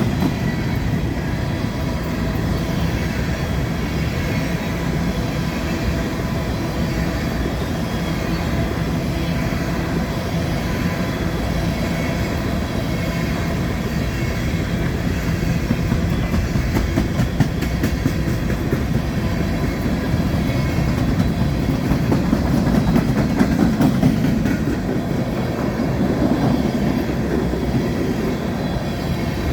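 Empty coal train's hopper cars rolling past in a steady rumble, with wheels clicking over the rail joints. The rumble grows louder for a few seconds past the middle.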